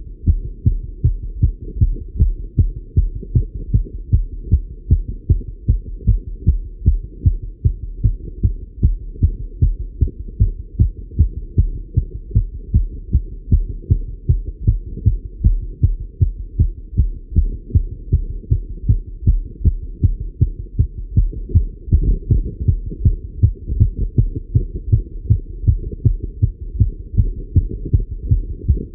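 A man's fast, regular heartbeat heard through a Littmann stethoscope during cycling exercise, about two low thumps a second.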